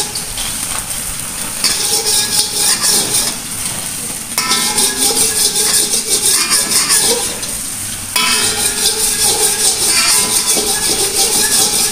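Hot oil sizzling in a metal wok while a metal spatula stirs and scrapes around the pan in quick, repeated strokes, louder in spells.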